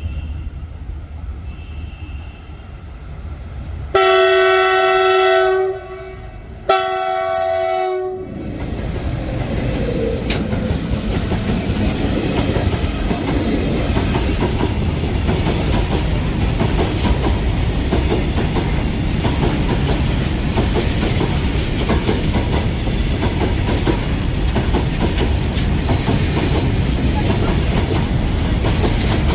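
Indian Railways WAG-7 electric locomotive sounding two horn blasts, the first about two seconds long and the second shorter. The freight train of BCNA covered wagons then runs past close by with a steady rumble and clatter of wheels on the rails.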